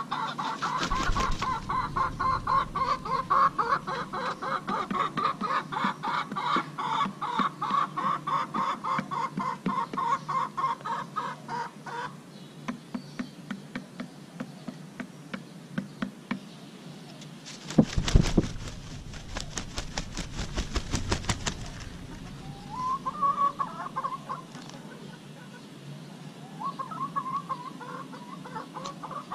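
A rooster clucking in a steady run of short calls, about two a second, while sharp taps mark its beak pecking rice off concrete. A little past halfway the calls stop for a loud, noisy burst, and a couple of shorter bouts of clucking come near the end.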